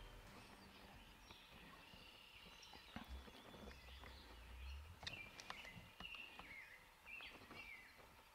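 Quiet morning field ambience with faint bird calls, short chirps that come mostly in the second half, and a few faint ticks.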